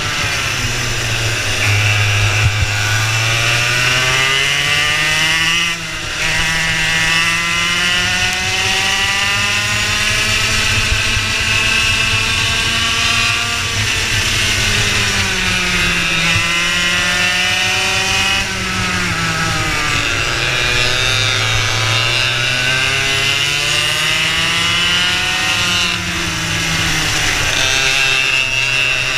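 Racing kart engine heard on board at race pace, its pitch climbing along the straights and falling off when the kart slows for corners, several times over.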